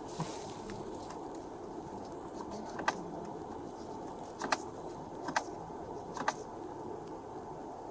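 Steady hum of an idling vehicle with a handful of sharp clicks scattered through, about five in all.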